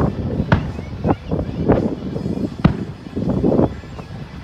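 Aerial fireworks shells bursting overhead: a string of sharp bangs at uneven intervals, with the sharpest about two and a half seconds in and a quick cluster of bangs just after three seconds.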